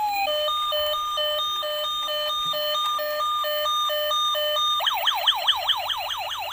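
Toy ambulance's electronic siren, loud. It alternates quickly between two tones, then, about five seconds in, switches to a fast rising-and-falling yelp.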